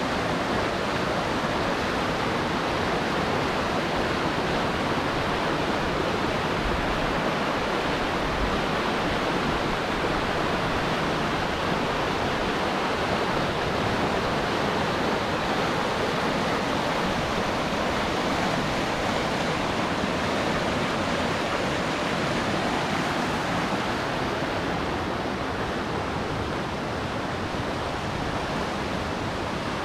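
White water of a river rapid rushing steadily over rocks close by, easing a little about three-quarters of the way through.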